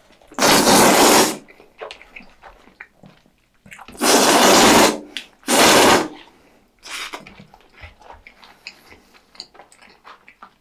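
Jjajangmyeon noodles slurped loudly off chopsticks: three long slurps, the second and third close together, then soft wet chewing clicks.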